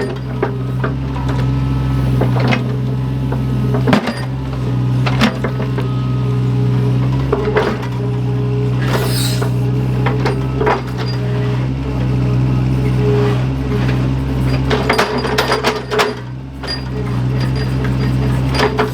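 Excavator's diesel engine running steadily while the machine digs, with scattered knocks and clinks, and a brief hiss about nine seconds in.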